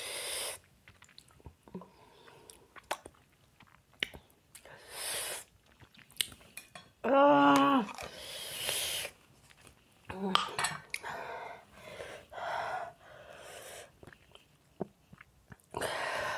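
A person chewing and eating from a jar with a spoon, small spoon-on-glass clicks between mouthfuls, with short hissing breaths and a loud pained moan about seven seconds in: a reaction to the burn of a super-hot chili chip.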